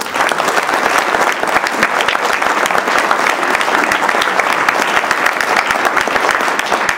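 Audience applauding: many people clapping steadily.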